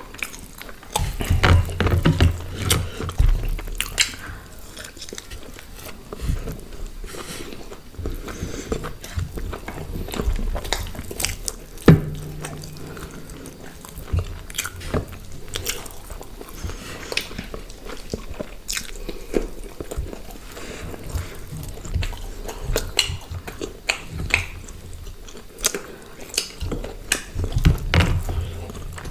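People chewing and biting grilled chicken and paratha close to the microphone: a run of irregular mouth clicks and smacks, with a few low thuds about a second in and near the end.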